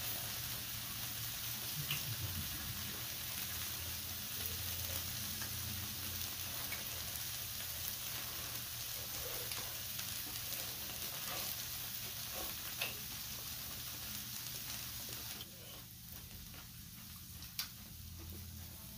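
Beef steaks and vegetables sizzling steadily on a hot grill plate, a fine crackling hiss that drops noticeably about three-quarters of the way through. Two sharp clicks stand out over it.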